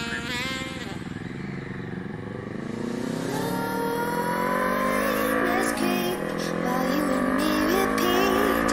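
Kawasaki Z250 parallel-twin motorcycle engine revving up under acceleration. Its pitch climbs for a few seconds, drops suddenly at a gear change about six seconds in, then rises again.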